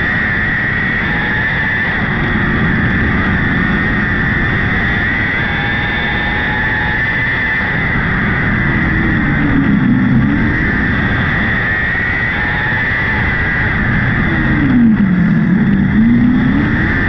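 Onboard sound of a micro sprint car's 600cc motorcycle engine running hard at high revs. Twice, about ten seconds in and near the end, the revs drop and climb back as the throttle is lifted and reapplied.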